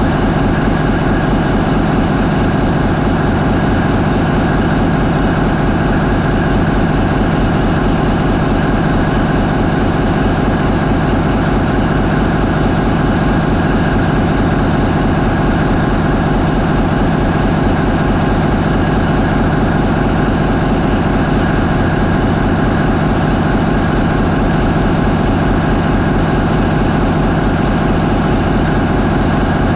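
MAN 20V28/33D STC twenty-cylinder V diesel, a high-speed ferry's main engine, running steadily at 550 RPM. It makes a loud, even drone that does not change.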